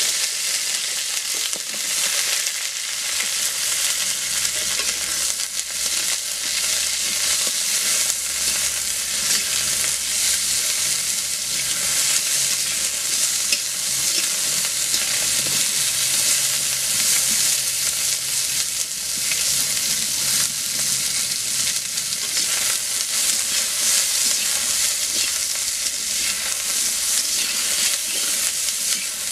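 Cut drumstick (moringa) pieces sizzling steadily in a hot metal karahi, with a constant hiss and crackle of frying. A metal spatula stirs and scrapes them against the pan.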